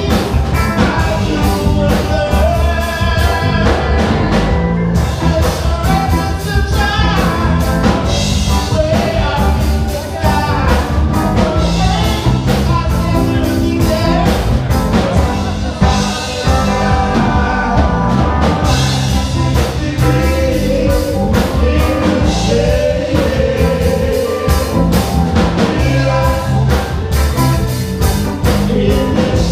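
Live band playing a song: electric guitar, keyboard and drum kit, with a singer on a microphone.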